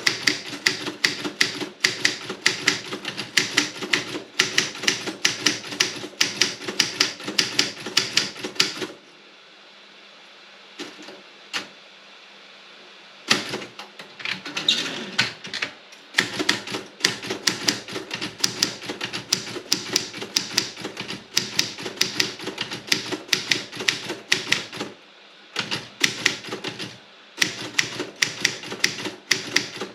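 Robotron 24 typewriter, wide A3 carriage, being typed on: fast runs of key strikes, several a second. About a third of the way in the typing stops for some four seconds, with only a couple of faint clicks, then carries on with short breaks near the end.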